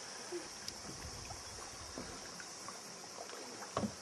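Canoe paddles dipping and water trickling and splashing around the canoe, with a brief knock near the end.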